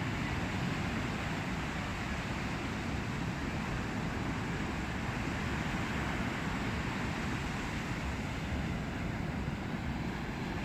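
Steady rushing noise of sea and wind, with a low, uneven rumble of wind buffeting the microphone.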